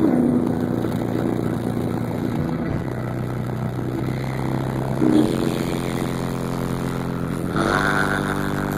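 Bass-heavy song played loud through a car stereo's Fi BL 12-inch subwoofers on about 2500 watts RMS, heard as steady deep bass notes. A higher stack of pitched notes comes in near the end.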